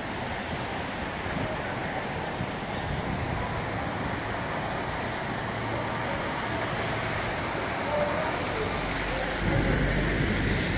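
City street traffic: a steady wash of cars and trucks driving past, tyres hissing on wet pavement. A heavier vehicle rumbles by near the end.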